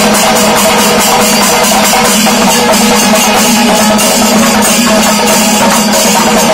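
Kerala chenda melam: massed chenda drums beaten with sticks in a fast, dense rhythm, with ilathalam cymbals clashing and kombu horns holding a steady drone, very loud.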